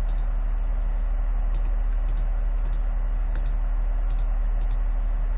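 Computer mouse clicking, about eight quick press-and-release pairs at uneven intervals, stepping through the moves of a Go game record on screen. Under it runs a steady low hum.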